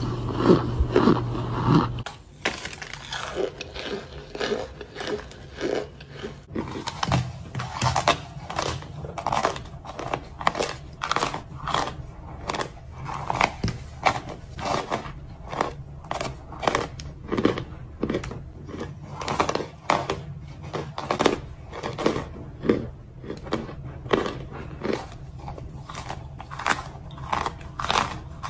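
Packed cornstarch chunks being bitten and crumbled in the hands: a long run of sharp, separate crunches, about one or two a second. The first two seconds are louder, over a low steady hum, and then cut off suddenly.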